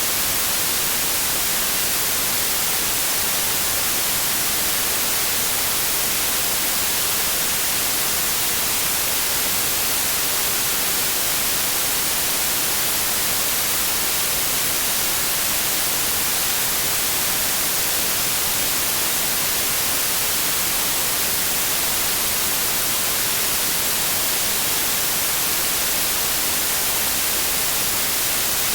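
Steady white noise: an even hiss across all pitches with no changes.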